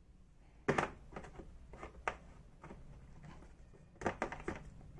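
Hand tools being handled in the slots of a moulded plastic tool case: a series of sharp plastic clicks and knocks, with a quick cluster of them about four seconds in.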